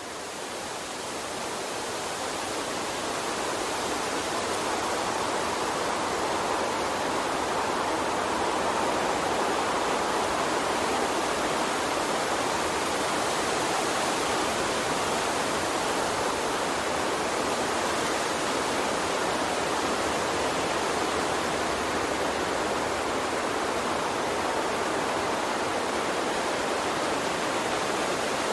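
Steady rushing of flowing stream water, swelling up over the first few seconds and then holding even.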